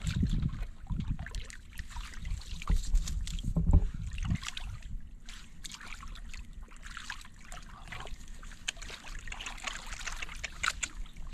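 Water sloshing and trickling, with low thumps and rumble in the first four seconds, then a steady patter of small splashes and drips.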